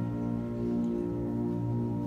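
Concert band playing, holding sustained chords.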